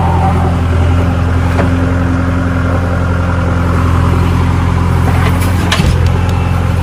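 A heavy diesel engine running steadily with a deep, even hum, and a few sharp knocks near the end.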